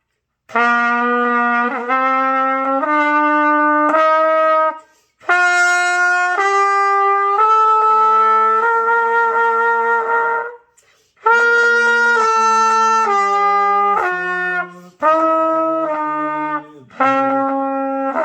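Trumpet played by a beginner: a slow scale of held notes, sol-la-ti-do, stepping up and then back down. It comes in several phrases with short breaks for breath.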